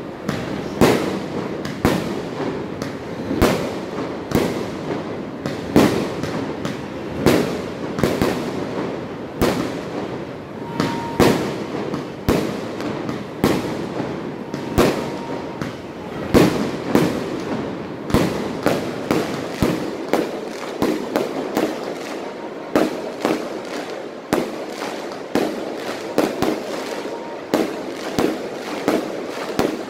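Many fireworks going off at once: an irregular run of sharp bangs, roughly one or two a second, with smaller pops in between.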